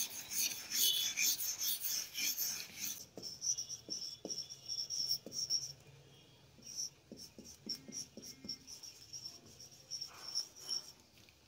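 Writing with a pen: irregular scratchy strokes for about three seconds, then a faint high squeaky pattern and scattered light taps as the writing goes on.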